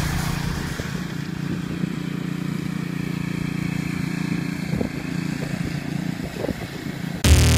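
Small engine of a ride-on tennis-court brushing machine running steadily as it drags a brush mat over a clay court. Electronic music cuts in abruptly near the end.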